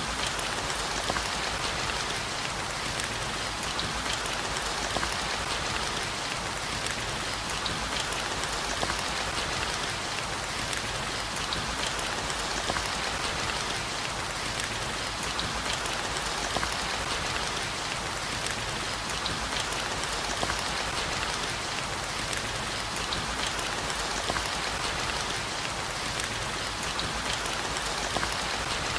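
Steady heavy rain: a constant even hiss with many small, sharp drop ticks scattered through it.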